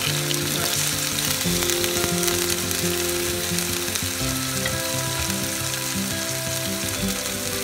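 Blue shark steaks sizzling steadily as they fry in olive oil in a non-stick pan, with background music of held notes underneath.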